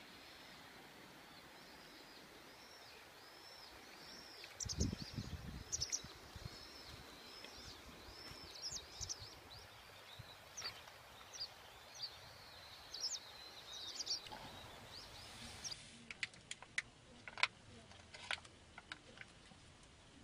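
A bird calling in a long, quick run of short chirps that rise and fall, over a steady outdoor hiss, with a few low thumps about five seconds in. After a cut near the end come several sharp clicks and ticks.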